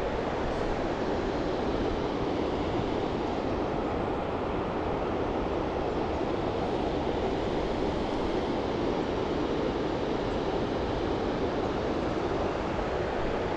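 A fast mountain river rushing steadily.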